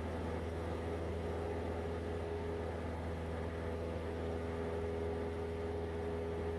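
Steady drone of a Cessna 172's piston engine and propeller heard inside the cockpit during a climbing left turn: an even low hum with a faint steady tone above it.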